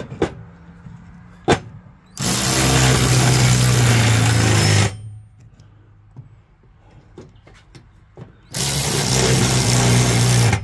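Cordless electric ratchet running in two bursts of two to three seconds each, driving the nut onto the shaft of a new mower-deck spindle. Two sharp metallic clicks come before the first burst.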